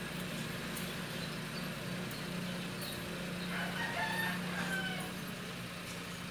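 A rooster crowing once, about three and a half seconds in, for around a second and a half, over a steady low hum from a car engine idling after its battery has been replaced.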